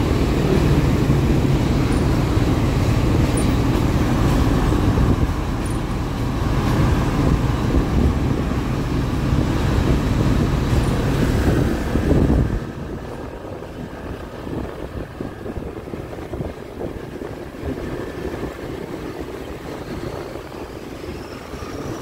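Diesel-electric locomotive engine running with a loud, heavy rumble that drops abruptly to a quieter, uneven rumble about twelve seconds in.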